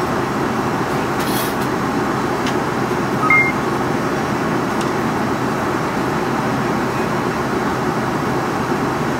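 Steady roar of airliner cabin noise in flight, engines and airflow running unchanged. A brief two-tone beep sounds about three seconds in.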